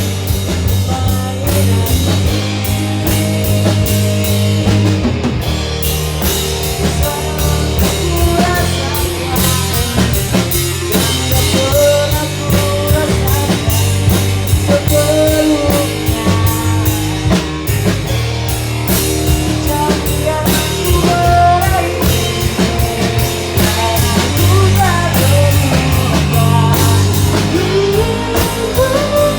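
Live rock band playing at a sound check, with a drum kit keeping a steady, busy beat under guitar.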